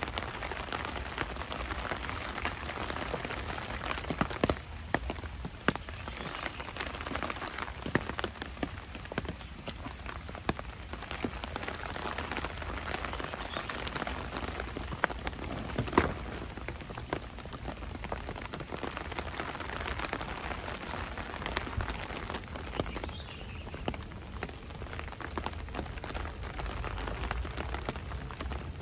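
Steady rain falling, with many scattered louder drops ticking out above the hiss, the sharpest about sixteen seconds in.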